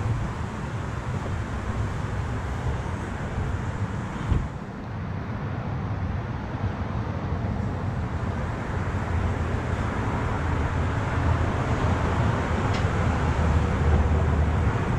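Steady low rumbling background noise, with one sharp knock about four seconds in.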